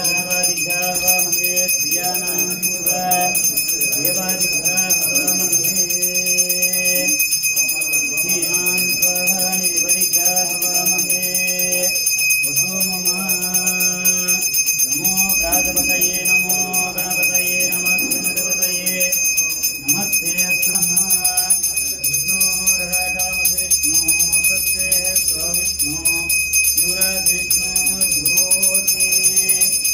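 A brass hand bell rung continuously in temple worship, its ringing steady, over instrumental devotional music with a shifting melody.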